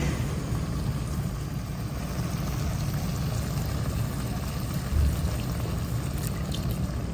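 Chicken sizzling in a steaming pan on a gas stove, over a steady low rumble, as a plastic spatula stirs it, with one knock about five seconds in. Near the end, half-and-half cream is poured from the carton into the pan.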